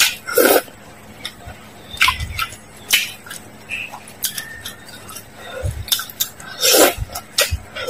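Close-miked slurping of noodles, with several loud slurps and the longest near the end. Short clicks of chopsticks and mouth sounds come between them.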